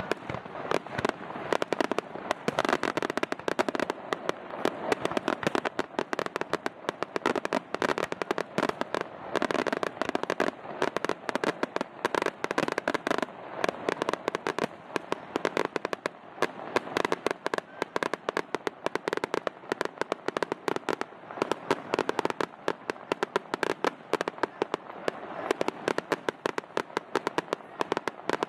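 Aerial fireworks going off: a dense, continuous stream of rapid crackling and sharp pops from bursting shells, with no let-up.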